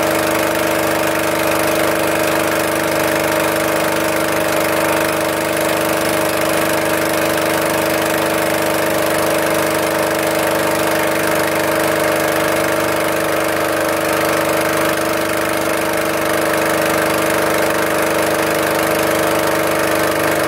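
Small passenger boat's engine running steadily at an even, unchanging pitch, heard from aboard the boat.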